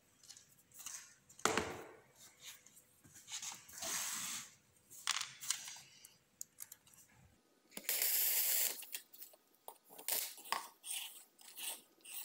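Hands handling tools on a board, with a couple of knocks early on from a cordless drill being set down, then scratchy pencil strokes marking an olive-wood slab, the loudest a short scratch about eight seconds in.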